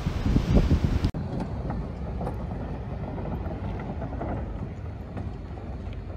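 Wind buffeting the microphone with uneven low rumbling, cut off abruptly about a second in, leaving a quieter, steady outdoor background noise.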